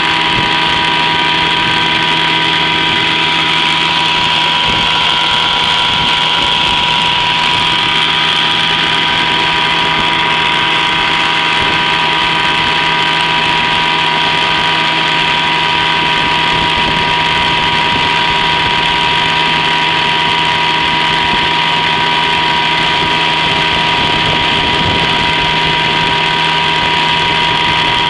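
10 hp Evinrude two-stroke outboard motor running steadily at speed under load, pushing the boat along, heard close up. The engine note holds even with no change in throttle.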